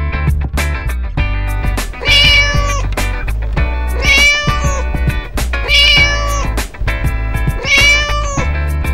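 Four cat meows, evenly spaced about two seconds apart, over background children's music with a steady beat.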